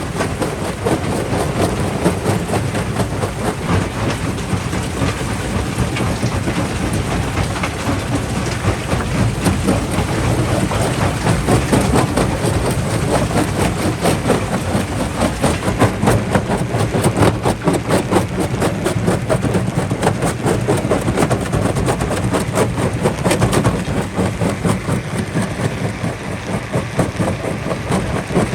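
Jaw crusher crushing rock: a dense, continuous clatter of cracking and knocking stone over a steady low machine drone.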